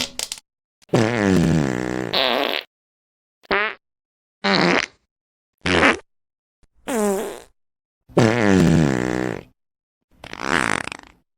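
A string of fart sound effects: about eight separate farts, each a buzzy blast whose pitch wavers, some short and a couple lasting nearly two seconds, with dead silence between them.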